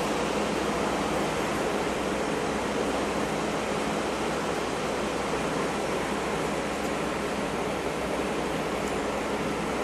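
Steady city street traffic noise, a constant even rush with a low engine hum from vehicles on the road.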